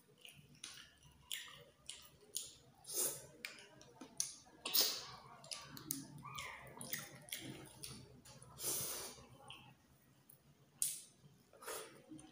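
Close-up eating sounds of snails cooked in coconut milk: small clicks of the snail shells being handled and picked, wet sucking and chewing, with a few louder wet sucks.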